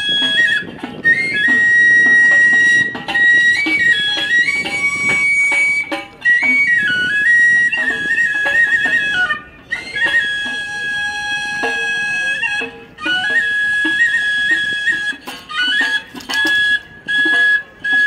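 Background music: a flute playing a melody of long held notes that step up and down, broken by short pauses.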